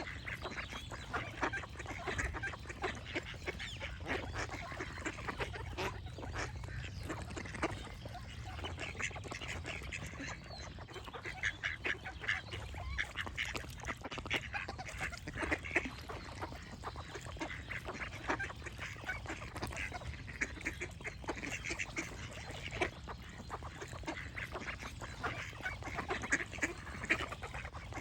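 A flock of ducks quacking and calling in many short, rapid calls, with a low steady rumble underneath.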